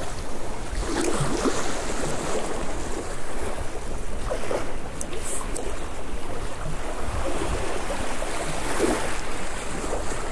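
Strong wind blowing on the microphone over the steady wash of sea waves.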